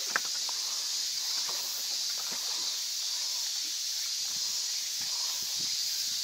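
Steady high-pitched hiss of insects singing, unchanging throughout, with a couple of faint clicks right at the start.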